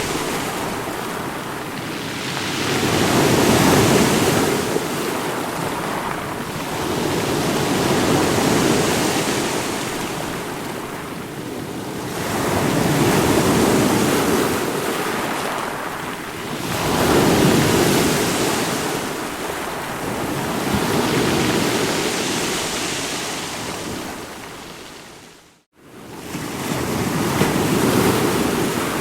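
Waves breaking and washing in, a steady rush of water noise that swells and ebbs every few seconds. About three-quarters of the way through, the sound fades out to silence for a moment and then comes back in.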